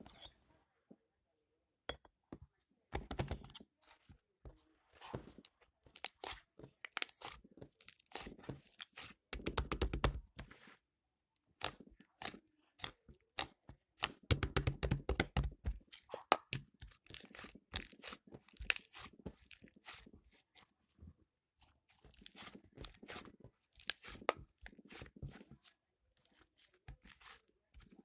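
Slime being squished and stretched by hand, making dense sticky crackling and popping clicks in bursts with short pauses between them.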